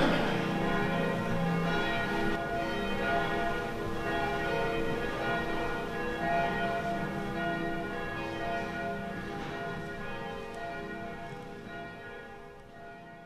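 Church bells ringing, several bells sounding together with fresh strikes every second or two, slowly fading out near the end.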